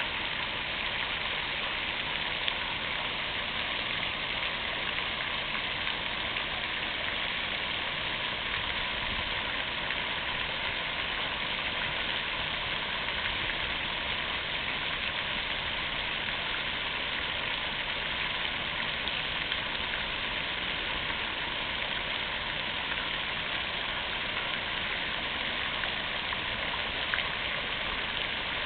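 Fountain water splashing steadily, an even, unbroken rush of falling water.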